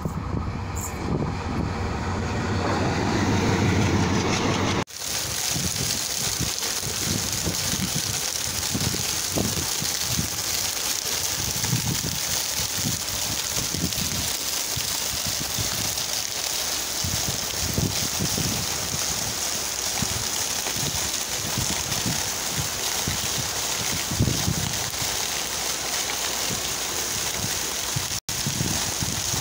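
A Chennai suburban EMU electric train comes into the station, growing louder for about five seconds. Then the sound cuts abruptly to heavy rain pouring steadily, with frequent irregular low gusts.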